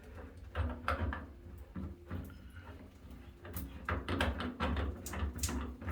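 Shower head being screwed back onto the shower arm: a run of small clicks and knocks from the threads and handling, coming thicker in the second half.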